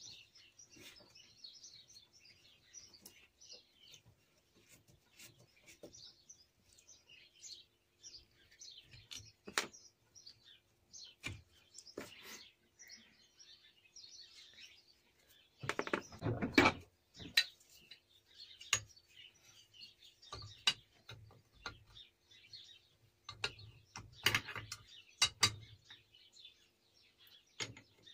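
Tools and small metal lathe parts clinking and knocking on a workbench during a strip-down, loudest in a clatter about halfway through and again about three quarters through, with birds chirping faintly in the background.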